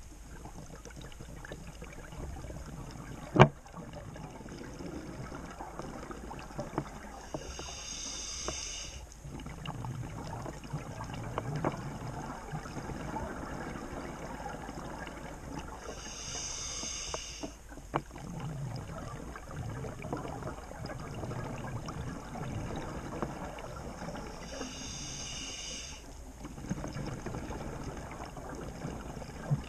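Scuba diver breathing through a regulator: a hiss of inhalation about every eight to nine seconds, each followed by the low rumbling gurgle of exhaled bubbles. A sharp click about three and a half seconds in is the loudest sound.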